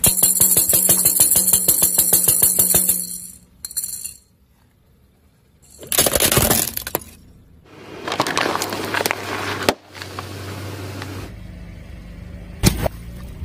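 A toy maraca shaken rapidly for about three seconds, then a car tyre rolling over a plastic toy drum and crushing it with a loud crunch about six seconds in, followed by more crunching. Near the end there is a steady low hum and one sharp crack.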